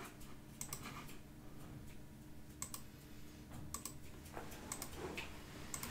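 A few faint, scattered clicks from a computer mouse and keyboard, some in quick pairs.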